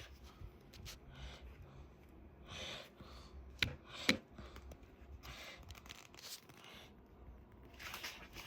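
Laptop box packaging being opened by hand: paper and cardboard tearing and rustling in short bursts, with two sharp clicks a little after the middle.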